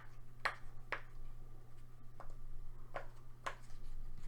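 Silicone pop-it fidget toy bubbles being pushed through one at a time, each giving a short sharp pop: about five pops, unevenly spaced, with a pause in the middle.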